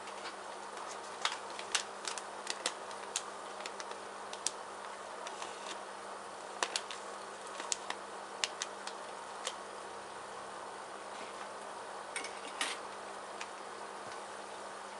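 Goldfish gulping freeze-dried bloodworms at the water surface: irregular sharp little clicks and pops, bunched through the first ten seconds with a few more near the end, over a steady low hum and hiss.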